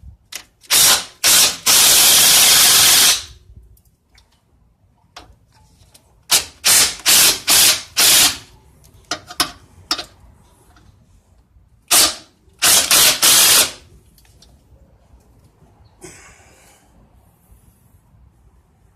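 A 3/8-inch power impact wrench with a 15 mm socket running in loud bursts as it loosens the old motor mount bolts. It runs in three groups: two short bursts then a longer one of over a second near the start, about five short bursts around the middle, and three more a little later.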